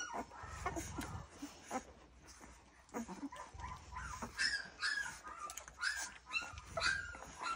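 Two-week-old bullmastiff puppies whimpering and squeaking while nursing on their mother. The short, high cries come more often in the second half, as a pup fusses at not being on a teat.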